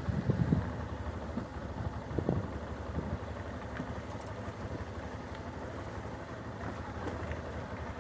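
Motorcycle engine running at low speed with road and wind noise, with a few low thumps in the first couple of seconds as the bike rolls over broken, potholed asphalt.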